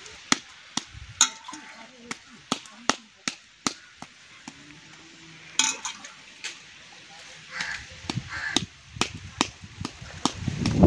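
Ragi (finger-millet) dough being shaped into a ball by tossing and rolling it in a coconut shell: a run of sharp taps, about two to three a second.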